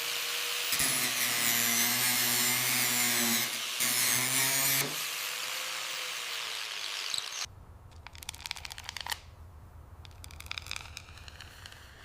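A power tool running with a steady whirring hum, which stops about five seconds in, followed by quieter scraping and rubbing strokes on metal.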